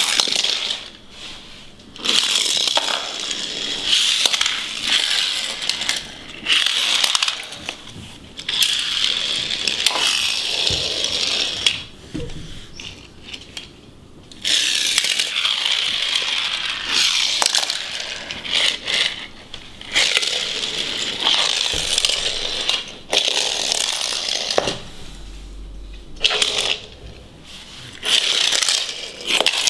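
Die-cast Hot Wheels toy cars pushed hard across a hard floor, one after another: about ten rushing rolls of their small wheels, each lasting a second or three, with short quieter gaps and a few sharp clacks.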